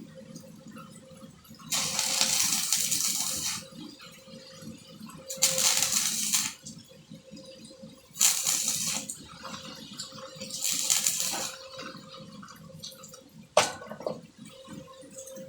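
Welding arc crackling and hissing in four short runs of one to two seconds each, with a steady faint hum between them and a single sharp click near the end.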